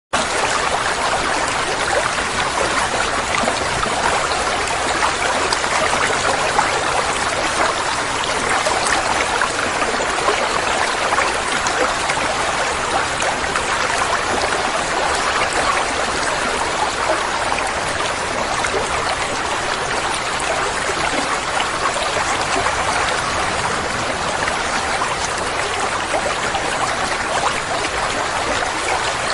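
Water running and trickling steadily into a koi pond, a continuous splashing burble with no change.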